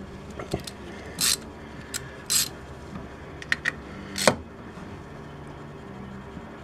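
Hand ratchet worked in short strokes on valve cover bolts, with a few sharp metallic clicks and one louder knock about four seconds in, over a steady low hum.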